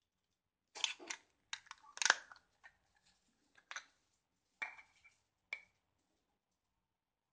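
Hands handling unboxing packaging and parts: irregular clicks and rustles in short clusters, the loudest about two seconds in, with two brief ringing clicks later on.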